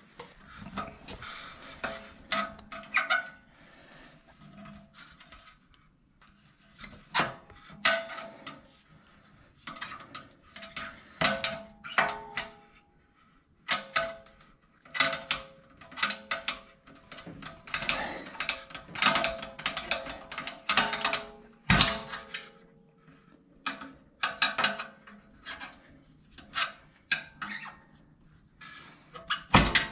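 A steel screwdriver pries and scrapes at the rubber hanger on a Honda Talon 1000R's stock muffler bracket, making irregular clicks, scrapes and taps of metal against metal and rubber. There is one sharper knock about two-thirds of the way in.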